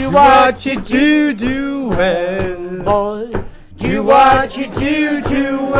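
A man singing an Irish folk ballad unaccompanied, in long held notes with short breaths between phrases.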